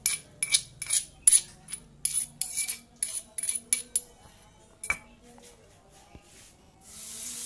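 Metal spoon scraping and clinking against a stone mortar and pestle (cobek and ulekan) while spice paste is scraped out, a quick run of clinks for about four seconds, then a single sharp knock just before five seconds. Near the end a steady hiss of spice paste starting to fry in a hot pan rises up.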